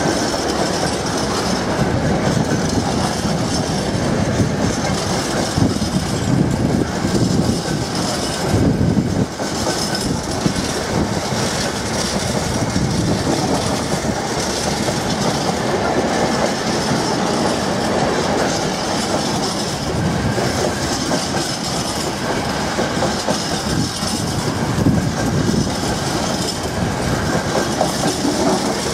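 Empty container flat wagons of a freight train rolling past in a long line, their wheels clattering over the rail joints in a steady clickety-clack.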